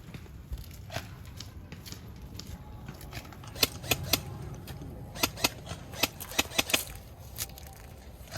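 Airsoft guns firing scattered single shots: about a dozen sharp snaps, irregularly spaced, mostly in the second half.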